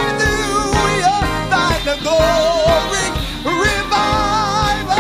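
Gospel choir singing live with a band, voices bending and gliding between notes over a steady drum beat.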